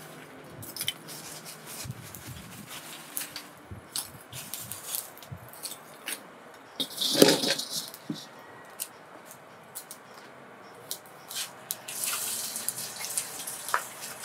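Lumps of charcoal clicking and knocking as they are placed into a clay charcoal stove, then a steel wok set down on the stove with a metal spatula inside, a louder clatter about seven seconds in. Scattered small clicks and scrapes follow.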